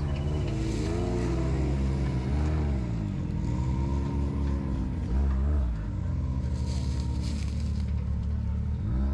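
Side-by-side UTV engine revving up and dropping back again and again, about five throttle blips, as the machine works its way over rocks at crawling speed.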